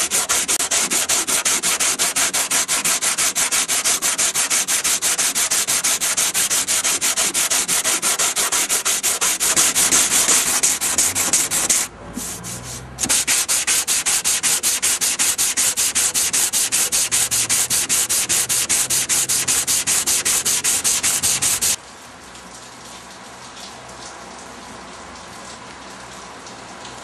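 Sandpaper rubbing down the painted bonnet of a Ford Capri by hand in quick, even back-and-forth strokes, with a brief pause about halfway. About 22 seconds in, the sanding stops and only quieter steady rain is heard.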